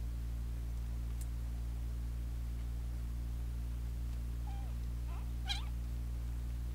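Very young kittens mewing: a few short, thin mews rising in pitch, about four and a half to five and a half seconds in, the last the loudest, over a steady low hum.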